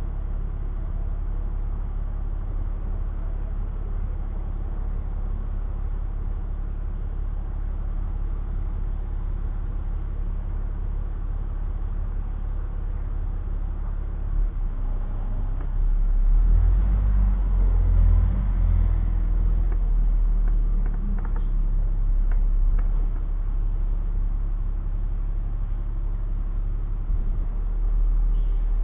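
Low, steady rumble of a city bus's engine and road noise. It grows louder for a few seconds about halfway through, then eases back.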